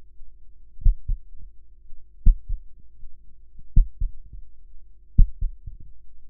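Heartbeat sound effect: slow double thumps, four beats in all about every second and a half, over a low steady hum.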